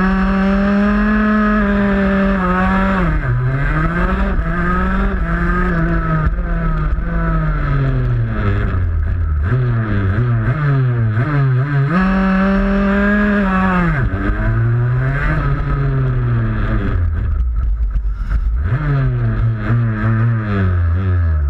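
125cc shifter kart's two-stroke engine heard onboard, its note climbing and dropping sharply again and again as it accelerates, shifts and backs off. The pitch drops hard around three seconds in, around twelve to fourteen seconds in, and again near the end.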